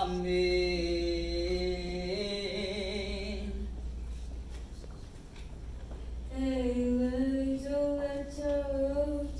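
A single voice chanting Hebrew Torah cantillation in long held notes. A first phrase lasts about three and a half seconds; after a pause of about three seconds a second phrase follows at a higher pitch.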